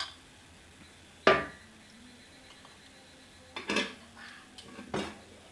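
Metal dishes and utensils knocking together: several separate clinks, the loudest about a second in with a short metallic ring, then a few more close together near the end.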